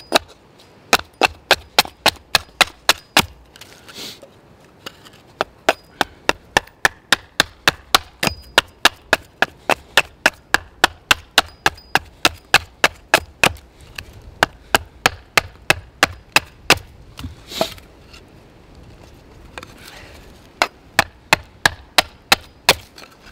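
Small axe taking short, quick carving chops down a split wooden plank stood on a stump chopping block, thinning it into a flat spatula blank: sharp wooden knocks about two to three a second. There is a brief pause about four seconds in and another of a couple of seconds past the middle.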